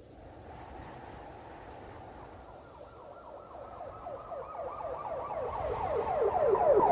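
Police car siren growing steadily louder as it approaches. It starts faint and, partway through, turns into a rapid warble of quick falling sweeps, several a second, with low road rumble rising near the end.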